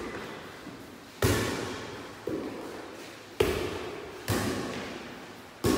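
Light air volleyball struck during a rally: five sharp hits about a second apart, the fourth one softer, each echoing in a large hall.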